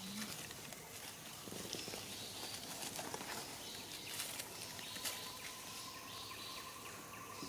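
Faint outdoor ambience: an even hiss with a few faint ticks, and a faint steady high tone from about four seconds in to near the end.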